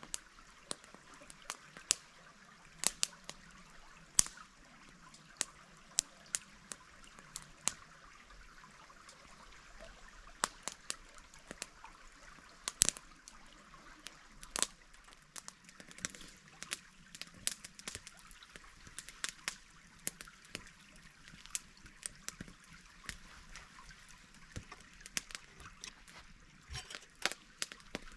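Shallow stream trickling steadily, with many sharp, irregular clicks and pops on top.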